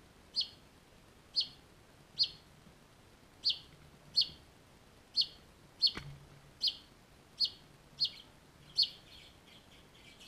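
Finch calling with short, high chirps, eleven of them at roughly one every three-quarters of a second, with a single sharp click about six seconds in and softer twittering near the end.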